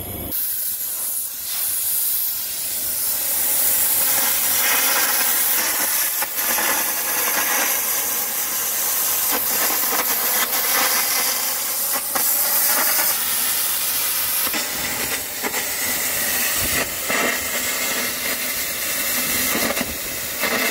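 Air arc (carbon arc) gouging on steel: the arc and compressed-air jet make a loud, steady hiss with crackling as molten metal is blown out. It starts abruptly right at the beginning. This is the gouging that cuts the broken tooth adapter's welds off the excavator bucket.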